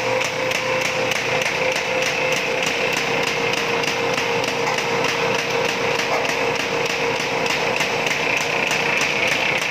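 CHM high-speed single-knife paper sheeter running, its cutting knife clacking in a fast, even rhythm several times a second as it cuts sheets from the paper web, over a steady machine hum.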